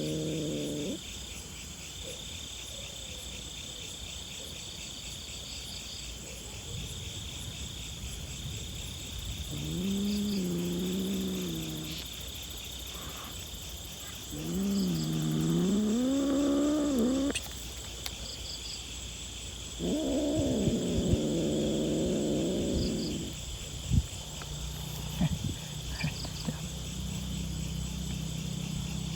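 A domestic cat meowing repeatedly: one call ends just at the start, then three long, drawn-out meows follow, each lasting a second or more and bending up and down in pitch, the last one rougher. Insects, likely crickets, keep up a steady high chirping throughout, with a few sharp clicks near the end.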